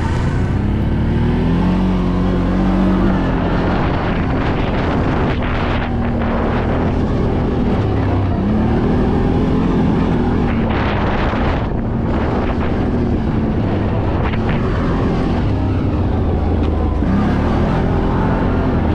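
ATV engine running under way, its pitch rising and falling again and again as the throttle is worked, with wind noise on the microphone.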